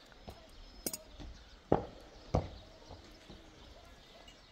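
A few irregular sharp knocks, the loudest near the middle, with a light metallic clink about a second in.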